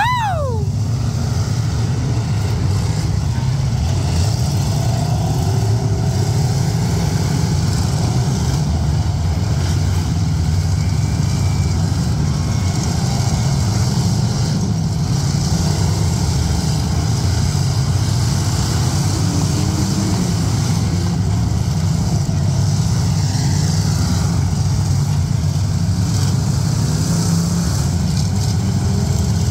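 Demolition derby cars' engines running together in a loud, steady drone through the heat. A brief falling whoop from a spectator right at the start.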